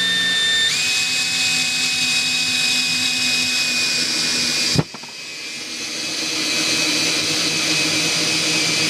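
Makita cordless drill on its lowest speed setting driving a 3.5-inch Spax screw into a 4x4: a steady motor whine that steps up in pitch under a second in. About halfway there is a sharp click and a brief dip, then the drill runs on.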